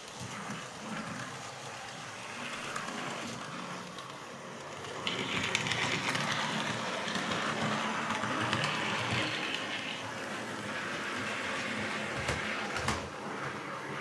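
Model Class 57 diesel locomotive running along the layout's track, its motor and wheels whirring steadily. It gets suddenly louder about five seconds in, and two short knocks come near the end.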